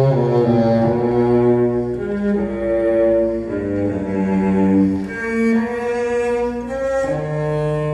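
Recorded music with low bowed strings, sustained notes that change about once a second, played through a Tannoy Canterbury GR dual-concentric loudspeaker.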